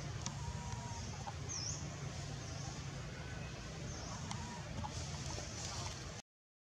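Outdoor ambience under a steady low rumble, with short high bird chirps repeating about every two seconds and faint chicken clucking. The sound cuts out briefly just before the end.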